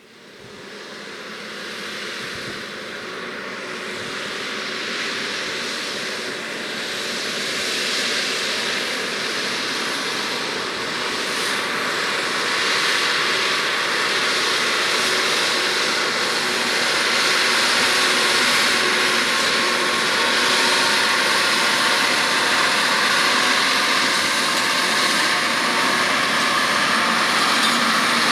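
John Deere 6R 185 tractor's six-cylinder diesel engine running under load as it pulls a six-furrow plough. The drone grows steadily louder over the first several seconds as the tractor draws near, then holds steady.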